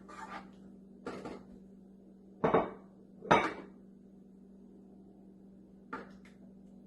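A spoon clinking and scraping against a cooking pot while paneer is added to spinach: a handful of short clatters, the two loudest about two and a half and three and a half seconds in, over a faint steady hum.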